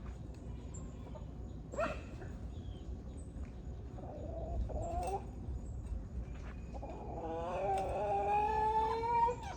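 Rooster crowing: a short call about halfway through, then one long crow of about two seconds near the end.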